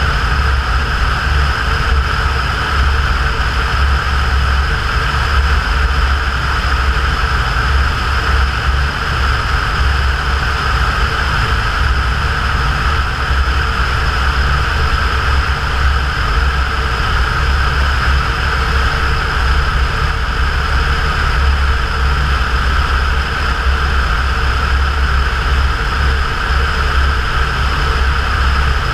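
Cessna 172's piston engine and propeller running steadily, with no change in power.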